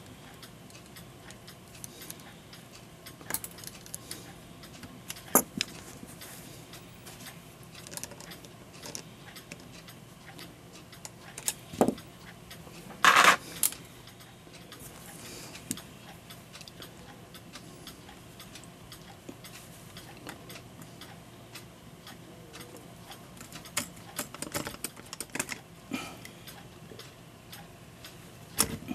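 Scattered, irregular clicks and clinks of a brass wall-clock movement and small hand tools being handled, with a louder metallic rattle about thirteen seconds in.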